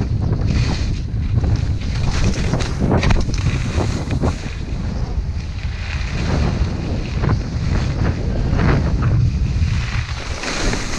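Skis hissing and scraping over thin, packed snow through a series of turns, with wind rumbling on the microphone of a helmet camera.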